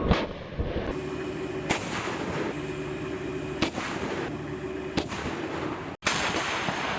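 Sharp weapon shots from armored vehicles firing on a range: four reports about one and a half to two seconds apart, over a steady vehicle engine hum. A short dropout near the end.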